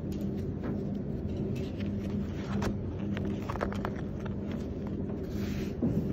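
A steady low machine hum that pulses slightly, under paper and fabric rustling and a few light clicks as a sample page in a binder is turned and smoothed by hand.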